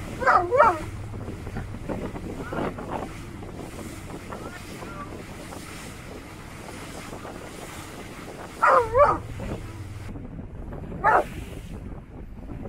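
A cadaver search dog giving short, wavering, high cries: a pair just after the start, a fainter one a couple of seconds later, another pair about 9 s in and a single one near the end. This vocalising is its alert on cadaver scent coming off the water. Wind on the microphone and water noise run underneath.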